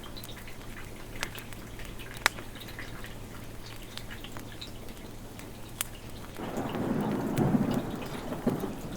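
Steady rain with scattered sharp clicks, and about six seconds in a roll of thunder rumbles up, peaks and fades near the end.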